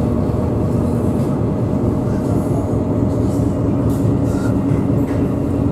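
The ferry Furutaka's diesel engines running steadily, a dense low drone heard from inside the passenger cabin as the boat gets under way, its hum rising slightly in pitch about two seconds in.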